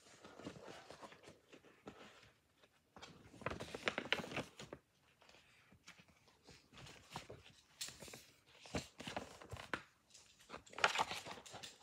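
Paper rustling and handling of a picture book, its pages and loose paper jacket shifted and turned in irregular bursts, with a single sharp knock a little before 9 s in.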